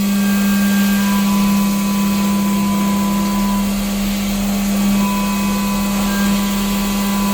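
CNC machine machining an aluminium part: a steady hum under an even hiss, with a higher whine that comes and goes several times.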